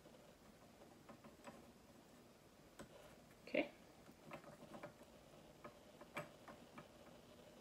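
Faint, irregular light clicks and taps of wooden popsicle sticks and a pencil being handled, with one slightly louder knock about three and a half seconds in.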